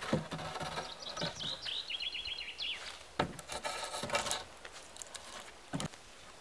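Wooden poles knocking and scraping against a log frame as they are laid across it, with several sharp knocks. A small bird chirps a quick run of high notes about two seconds in.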